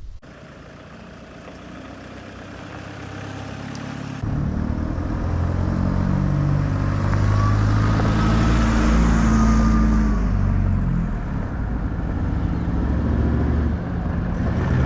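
Off-road vehicle engine running. It grows louder and jumps sharply in volume about four seconds in, with the engine note shifting up and down after that.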